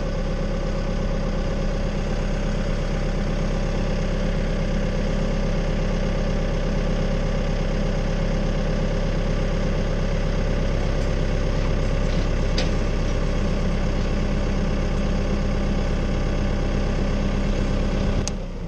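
Tractor engine idling steadily, then cutting out near the end.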